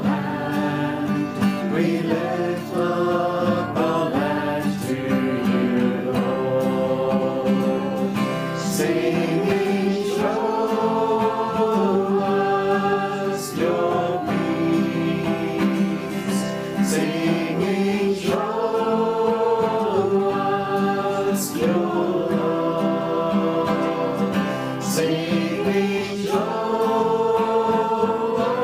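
A worship song: voices singing a slow melody over instrumental accompaniment.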